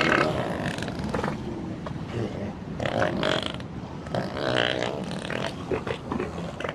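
Elephant rumbling and grunting in low, throaty growls, with a couple of short higher moans about three and four and a half seconds in. There is no trumpeting.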